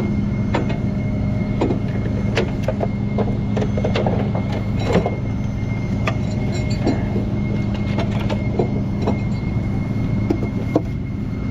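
Truck engine idling with a steady low hum and a thin, steady high-pitched buzz over it, with scattered light clicks and knocks.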